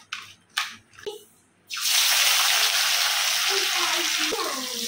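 Marinated fish pieces frying in hot oil in a kadhai: a steady loud sizzle that starts abruptly about two seconds in. Before it come a few soft clicks from the fish being handled in a steel bowl.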